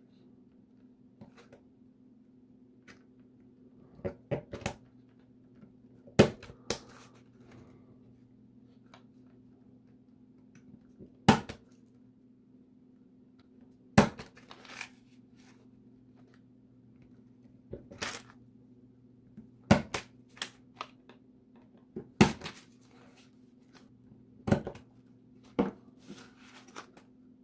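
Laser-cut plywood parts snapping out of their sheet: sharp cracks at irregular intervals, some in quick pairs, over a faint steady hum.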